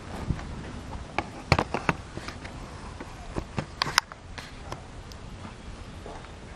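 Camera handling noise: a run of sharp clicks and knocks as the camera is moved and set in place, ending about four seconds in, then a low steady outdoor background.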